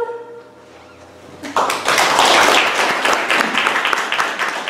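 A woman's last held sung note fades out, and after about a second of quiet a small seated audience breaks into applause, dense hand-clapping that carries on to the end.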